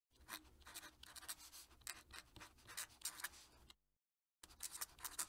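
Faint scratching of a fountain pen nib on paper as a word is written in cursive: a quick run of short strokes, a brief pause about three-quarters of the way through, then more strokes.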